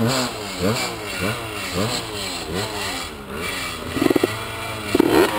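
Small dirt bike engine, just kick-started, being blipped with the throttle over and over: the revs jump up and fall back about one and a half times a second, with two louder blips near the end.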